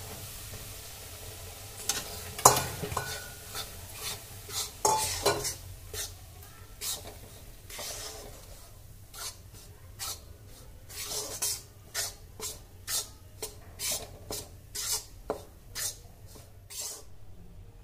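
Ragi (finger millet) flour being roasted in hot fat in a metal kadai for halwa. At first the fat sizzles as the flour goes in. Then a metal spatula scrapes and knocks against the pan in repeated strokes, about one or two a second.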